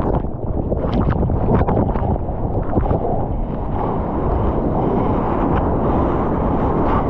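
Churning whitewater rushing around a bodyboarder paddling through broken surf, heard close up with water hitting the microphone. A continuous heavy rush with scattered short splashes from the paddling hands.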